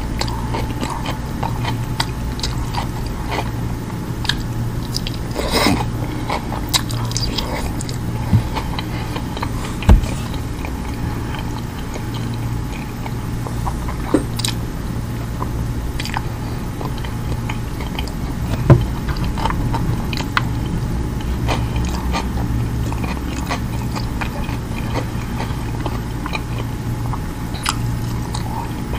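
Close-miked chewing and wet mouth clicks of someone eating roast lamb and kabsa rice, with a couple of sharper clicks about ten seconds and nineteen seconds in. A steady low hum runs underneath.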